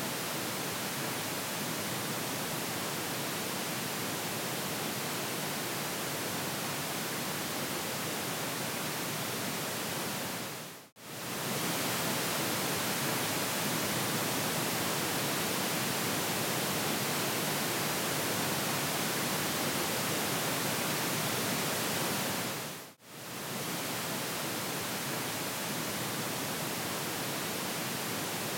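Pink noise test signal from a 5.1 sound-check track, a steady even hiss with almost nothing below about 100 Hz. It plays in segments about twelve seconds long, dipping out briefly and coming back twice.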